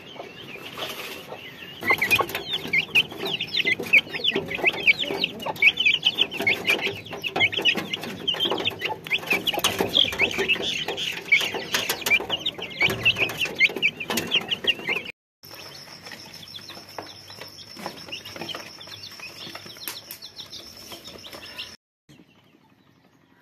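A flock of young white chickens peeping constantly, many short high peeps a second. It cuts off suddenly about fifteen seconds in, giving way to a quieter stretch with a steady high whine and scattered clicks, and near the end almost nothing is heard.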